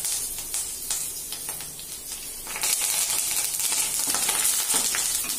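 Fresh curry leaves sizzling and crackling in hot oil with a tempering of spices, garlic and chillies, stirred with a wooden spatula. The sizzle grows louder about two and a half seconds in.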